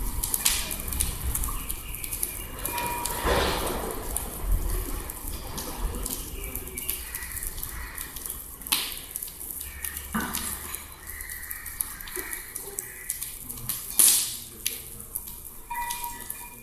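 Wood fire crackling and popping in a brick homa fire pit, with scattered clicks and a sizzle as an offering is poured from a metal vessel into the flames. One loud sharp snap comes near the end.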